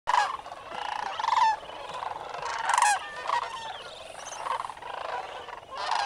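A large flock of sandhill cranes calling all at once: a continuous chorus of overlapping rolling, warbling calls. Louder calls from nearer birds stand out at the start, about a second and a half in, and near the three-second mark.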